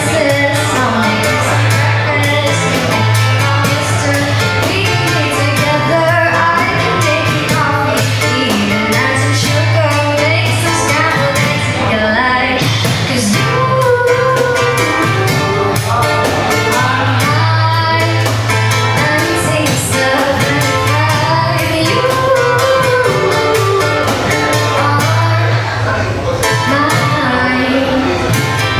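Live pop ballad: a woman singing a melody over strummed acoustic guitars, with a steady beatboxed percussion beat.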